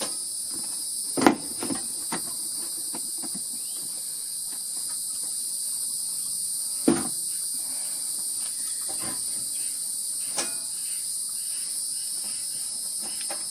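A steady, high-pitched insect chorus drones throughout. Over it come a few sharp knocks and clicks of parts being handled as a portable gas burner is set up, the loudest about a second in and near the middle.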